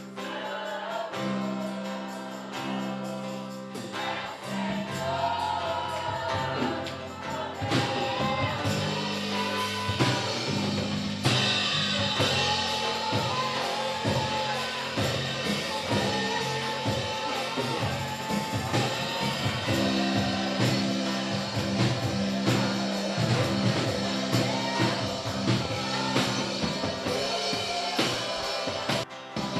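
Gospel worship music: sustained keyboard chords, with drums coming in about five seconds in and voices singing over them.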